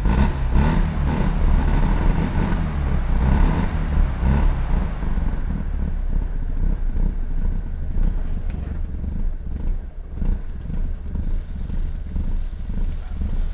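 NSU Ro 80's twin-rotor Wankel rotary engine running, a bit louder in the first few seconds and then settling to a steadier, quieter run.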